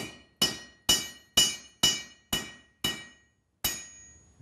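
Cross-peen hammer striking a red-hot quarter-inch square steel bar laid over a hot cut hardy in the anvil, cutting the bar at its notch. Eight sharp ringing blows about two a second, the last after a short pause and ringing longest.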